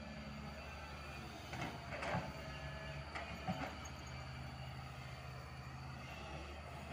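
Doosan DX225LCA crawler excavator's diesel engine running steadily under hydraulic load as the machine swings its loaded bucket. A few short clanks and scrapes come about two seconds in and again around three and a half seconds in, as the bucket works and dumps its earth.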